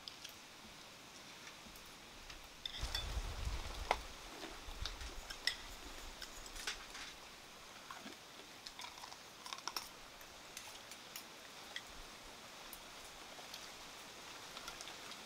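Faint, scattered clicks and taps of spoons and dishes as people eat at a table, with a couple of low thumps about three and five seconds in.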